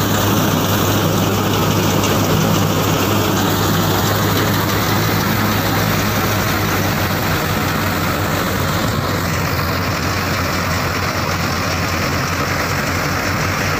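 Powertrac Euro 50 tractor's diesel engine running steadily under load, driving a Jagatjit straw reaper through the PTO. The reaper's cutters and blower add a constant whir over the engine's low hum.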